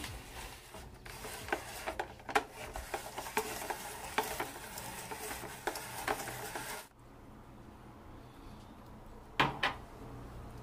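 Hand-cranked vegetable spiralizer slicing cucumber and carrot into ribbons: a scratchy, crackling crunch with many small clicks from the crank and blades. It cuts off suddenly about seven seconds in, leaving low room tone with two sharp clicks near the end.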